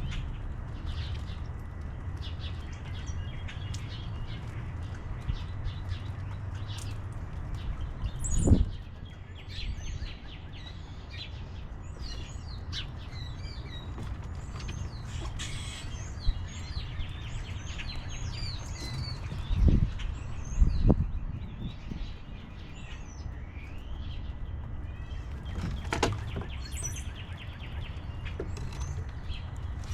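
Small birds chirping repeatedly at a feeder, short high calls scattered throughout. Under them runs a steady low rumble, with a few dull thumps about 8, 20, 21 and 26 seconds in.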